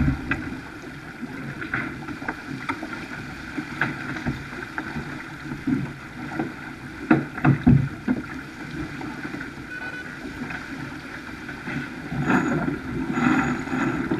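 Wind buffeting the microphone and water rushing along the hull of a Farr 280 racing sailboat under sail, with a few heavy thumps about seven seconds in and a louder rush of water near the end.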